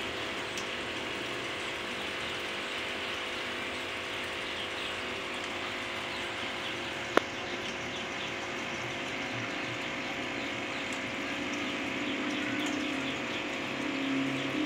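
Steady machine hum and hiss, with light water sounds from a hand moving through the water of a shallow basin. A single sharp click about seven seconds in.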